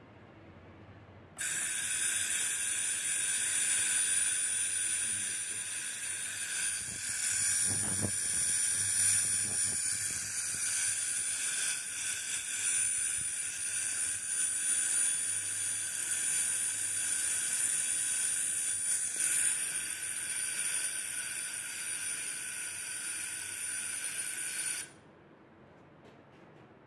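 Vitco V-Bond Shagun milk analyser running a test cycle on a milk sample: a steady hiss with several high whining tones. It starts suddenly about a second and a half in and cuts off suddenly about two seconds before the end.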